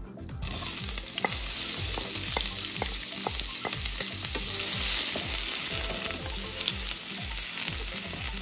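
Chopped red onions dropped into hot ghee in a frying pan, sizzling as soon as they hit about half a second in. The onions keep sizzling steadily as they are stirred with a wooden spatula.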